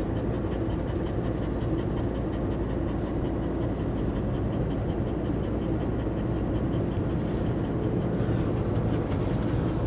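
Motorhome cab at road speed: steady engine and tyre noise heard from inside the cab.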